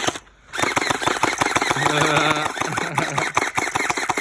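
Electric gel blaster firing on full auto: a fast, dense stream of sharp clicks that starts after a short gap about half a second in and keeps going, with a brief flat hum partway through.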